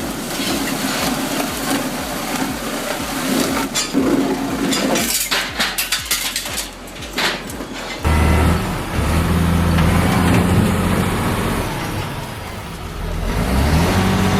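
Cambio 45 log debarker running, logs and bark clattering through the spiked feed rollers with many sharp knocks. About eight seconds in this gives way to a heavy diesel engine running steadily under load, its revs rising near the end.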